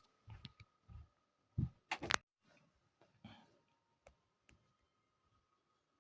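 Faint handling noises: a few soft clicks and rustles in the first two seconds or so, then near silence with a faint steady hum.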